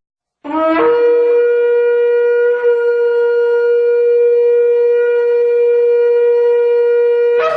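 Shofar sounded in one long blast: a brief lower note at the start, rising into a single steady note that is held for about seven seconds before it stops.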